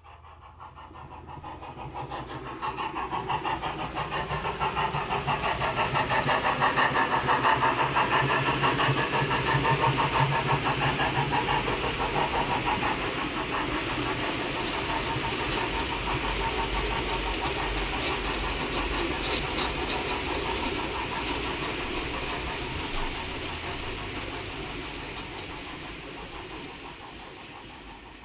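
OO gauge model goods train running past, a WD 2-8-0 locomotive hauling a rake of mineral wagons: a rapid, steady clatter of small wheels on the track. It grows louder over the first several seconds as the train approaches, then slowly fades as the wagons go by.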